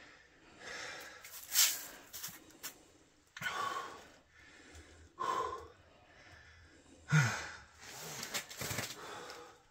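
A man breathing hard in a series of short, breathy exhales and sighs, about six in all with pauses between them, as he strains bent over to hold a large fish in the water.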